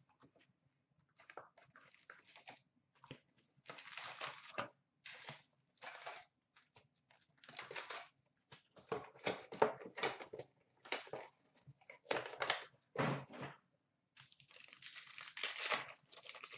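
Hockey card packaging being opened by hand: a series of uneven crinkling and ripping noises as a Black Diamond box is handled and its foil card pack wrappers are torn open.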